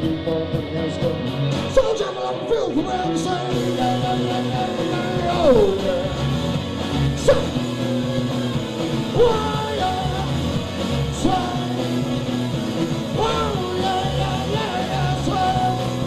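Live rock band playing a song with singing, at full volume. Several loud swooping notes fall in pitch, about every four seconds.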